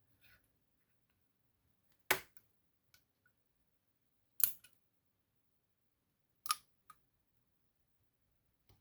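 Three sharp metallic clicks about two seconds apart, with a few fainter ticks between them: small metal parts of a lock being worked with tweezers during disassembly.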